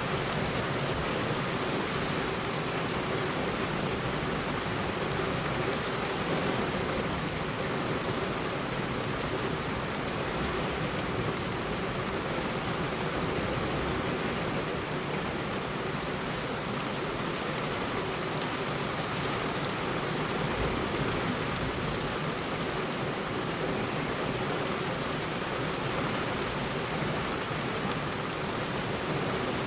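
Heavy rain falling steadily on a road: a dense, even hiss of rain.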